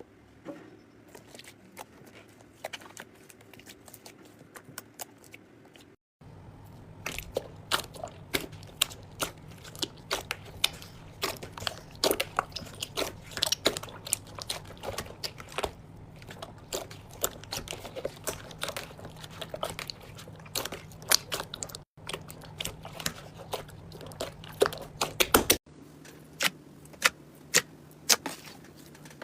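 Slime being pressed, squished and stretched by hand, giving many sharp crackles and pops. It comes as a few separate clips cut together, with the background changing at each cut.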